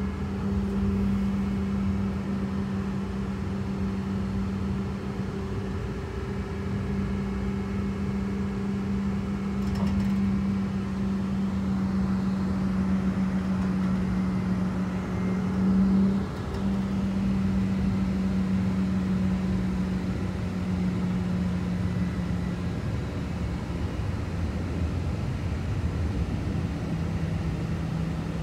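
Interior running noise of a Zurich tram in motion: a steady low hum over the rumble of wheels on the rails. The hum breaks off briefly about halfway through and settles slightly lower in pitch near the end.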